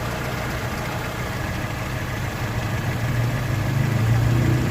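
Multi-cylinder gasoline engine idling steadily, getting a little louder near the end. Its misfiring cylinder's spark plug has been replaced, and it runs evenly without the misfire or shaking.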